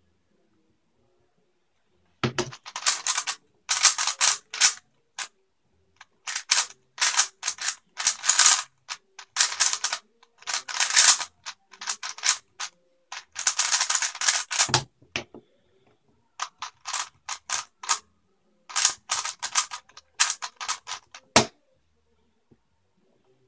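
3x3 speedcube turned at speed during a solve: rapid runs of plastic clicking and clacking in bursts with short pauses, starting about two seconds in. A few heavier thumps break in, the last and sharpest near the end as the hands come down on the table.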